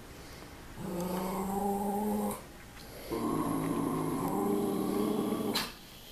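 Two long, steady growls: one lasting about a second and a half, then after a short pause a rougher one of about two and a half seconds.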